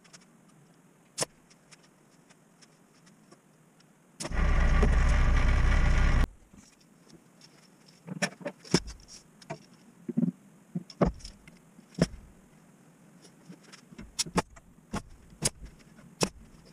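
A power tool's motor runs steadily for about two seconds, starting and stopping abruptly about four seconds in. After it come scattered sharp clicks and knocks of tool work on the plywood cabinet.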